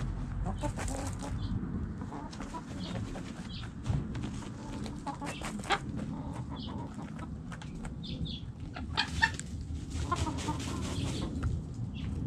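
A flock of backyard hens clucking softly and intermittently, with scattered scratching and scraping clicks as they dig and dust-bathe in dry dirt.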